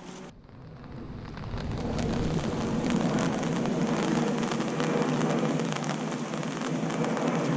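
Rain falling steadily on a fishing umbrella, a dense patter of drops that builds over the first couple of seconds and then holds steady.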